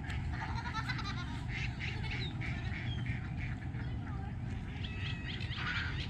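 Wild ducks and other birds calling at once, many short quacks and chirps overlapping throughout, over a steady low rumble.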